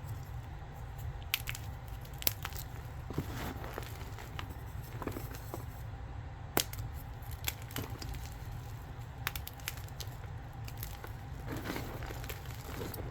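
Gym chalk being crushed: irregular crisp crunching and crackling, with a few sharper snaps standing out.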